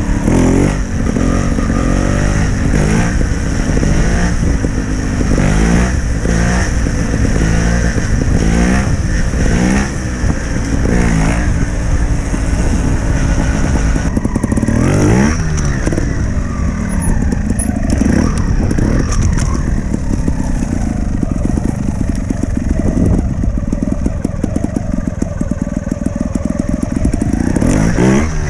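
Trials motorcycle engine being ridden: the revs rise sharply again and again through the first half, then it runs lower and steadier, with single revs about halfway and near the end.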